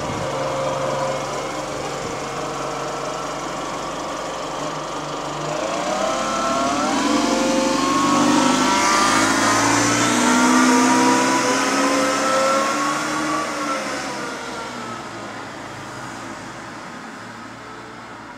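Engine of the Go-Ahead London single-decker bus SE62 moaning as the bus pulls away and accelerates, its pitch climbing in steps, then fading as it drives off.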